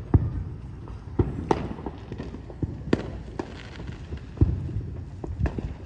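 Fireworks going off: an irregular string of sharp bangs and crackles over a low rumble, the loudest bang about four and a half seconds in.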